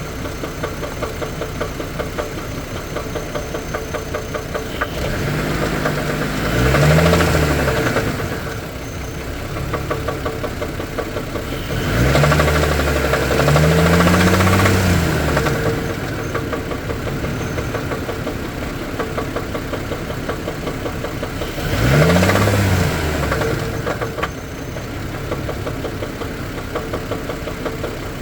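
Engine idling with a rapid, regular knock, revved three times, its pitch rising and falling back each time. The knock is the engine fault being recorded.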